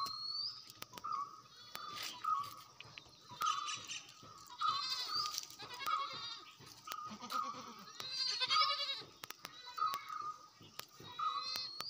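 Goats bleating: a short high call repeating over and over, with louder rapid bursts several times.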